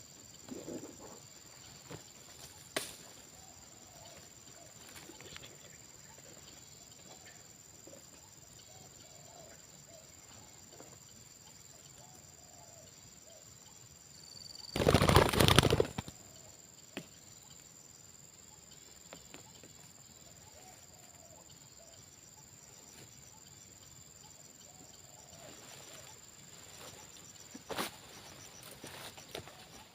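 A burst of dove wing flapping about halfway through, lasting about a second and a half, over faint low spotted dove cooing. A steady high insect drone runs underneath.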